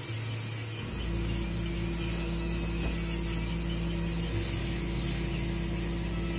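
Dental handpiece cutting into a dog's tooth under water spray: a high whine that wavers up and down in pitch as the bur bites, over a steady low hum that starts about a second in.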